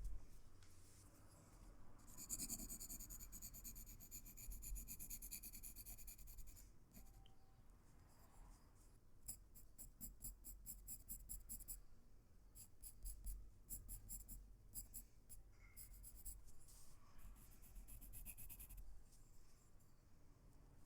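Pencil scratching faintly on paper in runs of quick back-and-forth strokes, as in shading, with short pauses between the runs.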